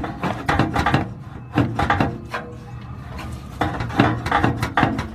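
Exhaust pipe clunking and rubbing as its hanger rod is worked into a rubber exhaust hanger, a string of irregular knocks and scrapes.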